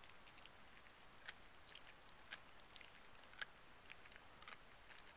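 Labrador chewing a whole raw fish: faint, irregular crunching clicks of teeth on fish and bone, one sharper crunch about three and a half seconds in.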